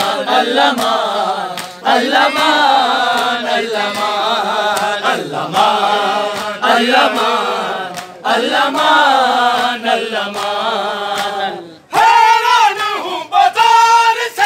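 Men's voices chanting a noha, a Shia mourning lament, in unison, the crowd joining the lines in long sung phrases. About twelve seconds in the chant breaks off for a moment and comes back louder.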